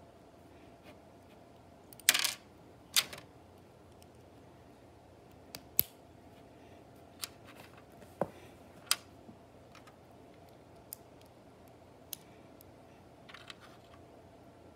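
Small plastic Lego pieces clicking as they are snapped together and handled: scattered sharp clicks, the loudest in a quick cluster about two seconds in, then single clicks every second or two.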